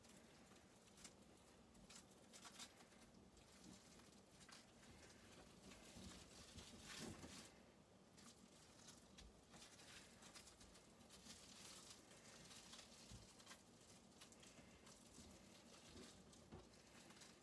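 Faint, irregular crinkling and rustling of plastic cling film as hands press and roll a wrapped chicken-breast roll, a little louder about halfway through.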